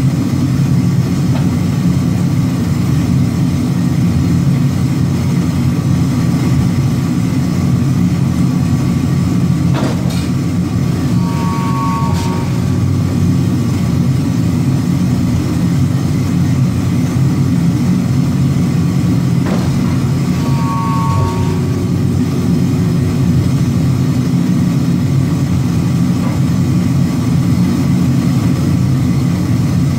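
Forging press running with a steady, heavy drone while it presses a red-hot chisel blank. A faint knock comes about ten seconds in and again near twenty seconds, each followed by a brief whine.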